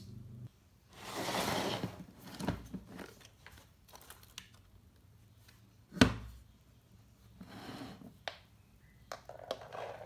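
Hands handling a plastic toolbox: a single sharp plastic snap about six seconds in as its latch is flipped open, with rustling and small clicks of handling around it.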